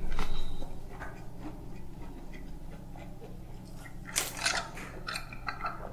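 Chewing a mouthful, then about four seconds in a short, noisy slurp through a plastic straw from a tumbler, followed by a few smaller sipping sounds.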